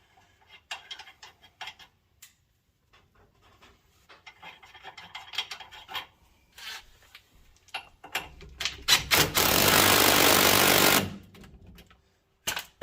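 Small metal clicks and rattles of parts and tools being handled, then about two seconds of a power tool, most likely an impact wrench, running loudly as it drives the rear shock absorber's mounting nut. A couple of short knocks follow near the end.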